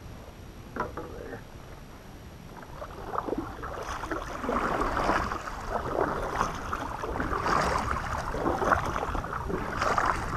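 Kayak paddle strokes dipping and splashing in lake water, an irregular run of strokes that starts about three seconds in and grows louder.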